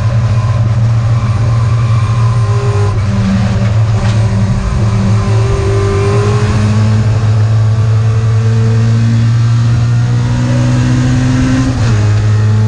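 1964 Mini Cooper S race car's BMC A-series four-cylinder engine on SU carburettors, heard from inside the cabin at racing speed. It runs loud, the revs climbing slowly, with a sudden drop in revs about three seconds in and again near the end.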